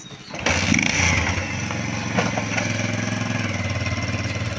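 Motorcycle engine picking up sharply about half a second in, then running steadily as the bike pulls away.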